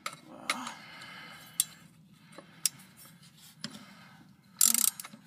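Half-inch drive socket ratchet working a rusted, stubborn shock absorber nut: single clicks of the pawl about once a second, then a quick, louder run of ratcheting near the end as the nut turns.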